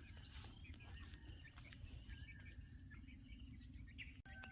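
Faint rural ambience: a steady high-pitched insect drone with scattered faint bird chirps over a low rumble.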